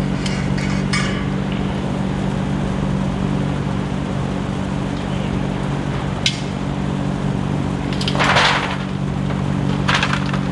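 Aluminum crab-boil strainer basket clinking and knocking, then a short rattling rush about eight seconds in, with a smaller one near the end, as boiled blue crabs, corn and potatoes tip out of it into a foil pan. A steady low hum runs underneath.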